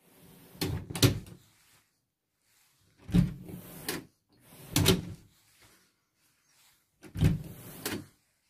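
A door being opened and shut four times, each time with a pair of sharp latch clicks and a knock.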